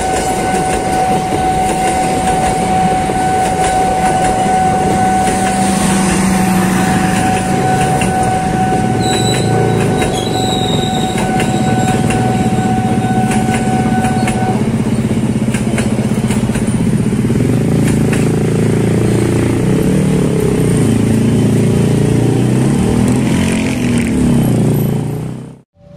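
Passenger train of K3 economy coaches running past at the crossing: a steady rumble of wheels on the rails with dense clattering from the wheels. A steady high whine runs through the first half and then stops. The sound cuts off abruptly just before the end.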